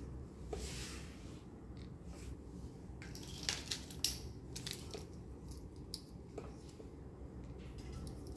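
Small plastic toy chairs clicking and rattling against each other as they are handled and set down, with a soft rustle about half a second in and the sharpest clicks a little before the middle.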